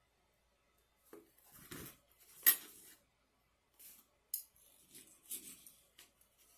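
Cutlery clinking and scraping against a dish, with one sharp clink about two and a half seconds in as the loudest sound and a few smaller clicks and scrapes after it.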